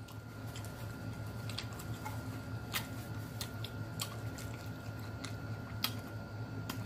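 Close-miked chewing and wet mouth smacks of a person eating boiled shrimp, with scattered sharp clicks a few times a second over a steady low hum.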